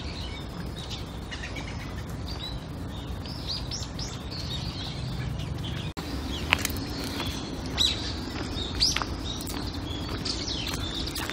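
Small birds chirping and calling again and again, with several sharp, quick call notes, over a steady low outdoor background rumble. A brief dropout about six seconds in, after which a faint steady low hum sits under the calls.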